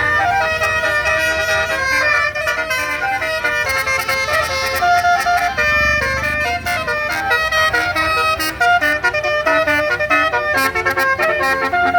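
Basuri 'telolet' bus horn playing a fast melody: several horn tones sounding together and stepping from note to note without a break.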